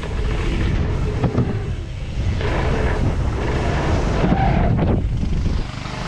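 Wind buffeting an action camera's microphone during a fast mountain-bike run, a loud, continuous rumble that eases briefly near the end.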